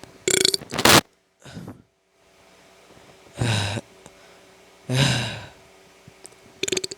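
A person's loud breaths and gasps: a sharp intake of air just after the start, then two breathy exhalations about a second and a half apart, with a few small clicks near the end.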